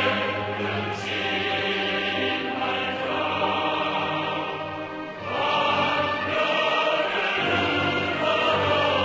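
Choral music: a choir singing long held lines over a full accompaniment, easing off briefly about five seconds in and then swelling again.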